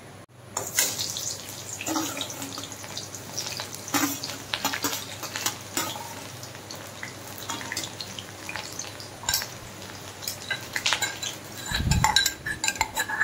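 Green vegetables sizzling in a pan as they are stirred, with a utensil scraping and clicking against the pan throughout. There is a heavier low bump near the end.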